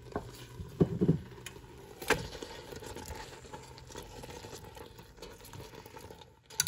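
A browned beef pot roast set down into a stainless steel stock pot of onions, carrots and gravy: a soft wet thud about a second in. It is followed by scattered light clicks and squelches as a fork presses the meat into place against the pot.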